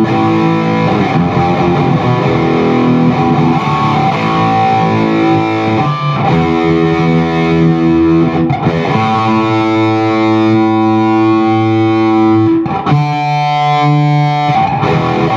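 Electric guitar with distortion played through a Zoom G1X Four multi-effects preset into a Peavey 6505+ combo amp. Chords are played and left to ring, changing about six seconds in and again near the end, with one chord held for several seconds.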